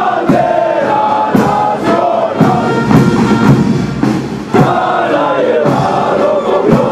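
Many voices singing together over a drum that strikes about once a second, during the hoisting of the national flag.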